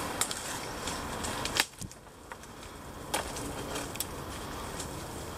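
Rustling footsteps through dense undergrowth and dry leaf litter, with scattered sharp clicks and snaps of twigs and branches.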